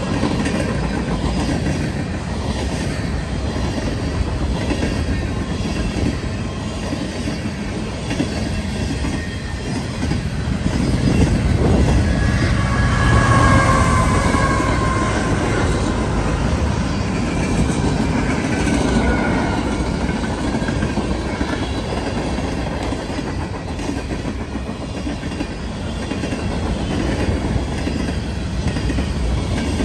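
Freight train rolling past at close range: steady rumble and clatter of railcar wheels over the rails. About 11 to 16 seconds in, a mid-train CSX diesel locomotive passes and the sound swells, with brief high wheel squeals around then and again a few seconds later.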